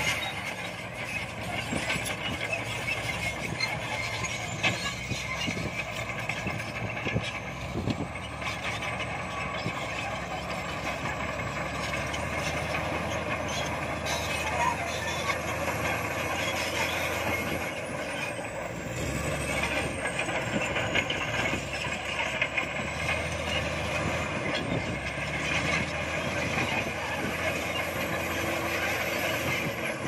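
Shantui SD22 crawler bulldozer's diesel engine running steadily under load as the dozer pushes soil and rock.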